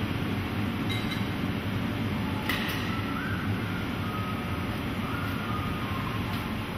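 Steady roar and hum of a glassworks hot shop. About two and a half seconds in there is a sharp click, then a few seconds of faint, thin squeaking as a glassmaker rolls the blowpipe on the bench and shapes the hot foot of a wineglass with a wooden paddle.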